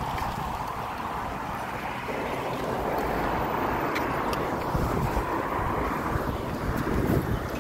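Wind buffeting the microphone of a moving bicycle, over steady road and traffic noise.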